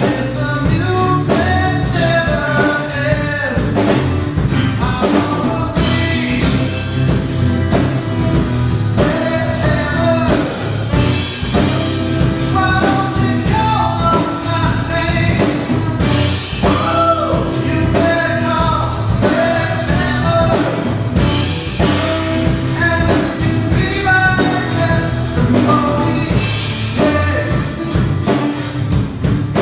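Rock band playing a song: singing over drum kit, bass and guitar, with a steady beat.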